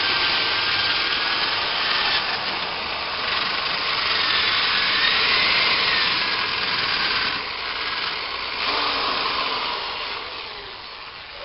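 Power drill boring a hole, a steady grinding cut with the motor's whine wavering in pitch, dying away near the end.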